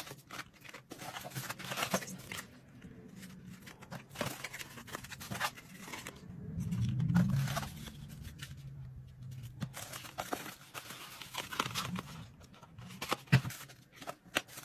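Rustling and crinkling of packaging as small cardboard makeup boxes are handled, with light taps and clicks as they are picked up and set down. A low hum swells for about a second midway.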